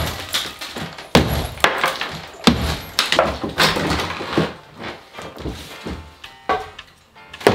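A mosaic-tiled kitchen benchtop being broken apart: a string of sharp knocks and cracks, roughly one every second, as tiles and the board beneath give way and pieces clatter down.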